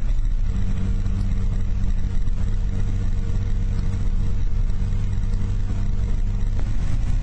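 Car engine and tyre noise heard from inside the cabin while cruising at speed: a steady low hum with road rumble.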